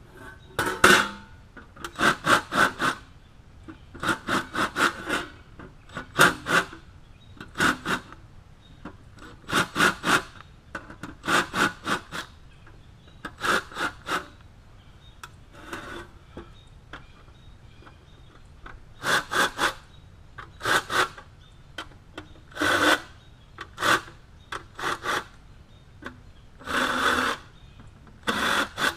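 Cordless drill boring holes through a thin sheet-metal patch plate, run in some fifteen short bursts of a second or less with brief pauses between.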